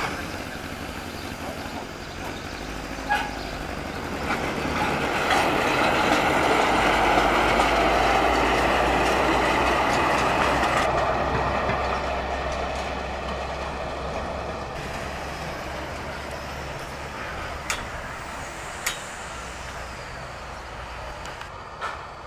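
Wickham rail trolley running along the track with its wagons in tow, engine and wheels on the rails swelling to their loudest as it passes and then fading as it moves away. A few sharp clicks near the end.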